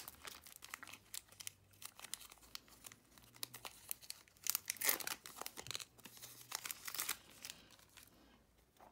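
A foil-lined Garbage Pail Kids trading card pack wrapper being torn open and crinkled by hand: a run of crackles and rips, loudest about five seconds in.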